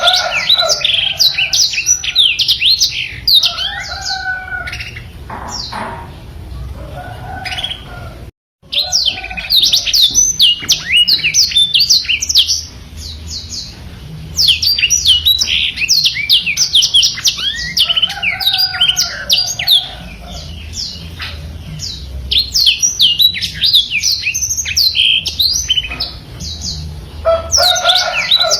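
Black-throated canary (blackthroat) singing long, fast rolling phrases of rapid high, sliding chirps, broken by short lulls. The song cuts out abruptly for a moment about eight seconds in.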